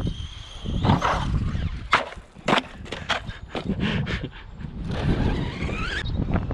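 Brushless electric motor of a Redcat Volcano EPX RC monster truck whining, its pitch rising and falling with the throttle, with a run of sharp knocks and clatters about two to three seconds in as the truck hits the ground. Near the end the motor whine climbs again as it accelerates.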